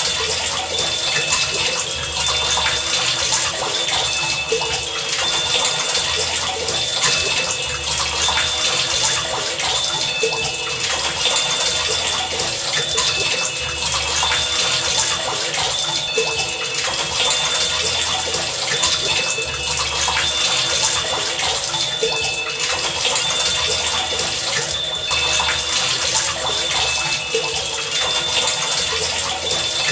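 Heavy rain pouring steadily, with short high-pitched tones recurring every so often on two pitches over the rush.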